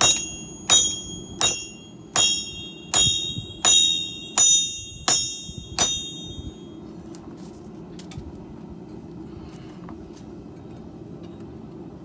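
Hammer blows on steel over an anvil: nine strikes at an even pace of about one and a half a second, each ringing with a high metallic tone, stopping about six seconds in.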